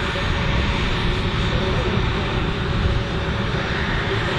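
A-10 Thunderbolt II's twin General Electric TF34 turbofan engines running at taxi power as the jet rolls past close by: a steady rush and whine over a low rumble, with no change in power.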